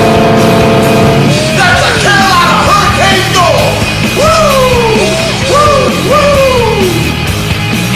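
An NHL arena goal horn holding a steady chord until about a second in, under a rock goal song with shouted, yelled singing that carries on after the horn stops.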